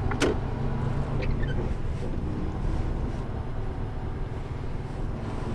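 Steady low drone of a Mercedes-Benz Antos 1824 18-tonne lorry's diesel engine and road noise heard inside the cab, with a single sharp click just after the start.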